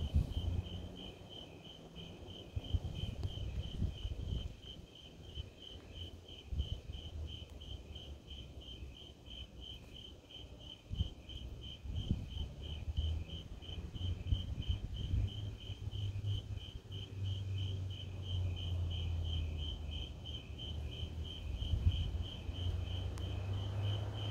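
Crickets chirping in a steady, even rhythm, about three high chirps a second, over an uneven low rumble.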